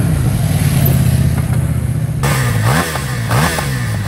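CFMoto 800NK's 799 cc parallel-twin engine running at a steady pitch as the motorcycle rides along, then, about two seconds in, three quick throttle blips, the revs rising and falling each time.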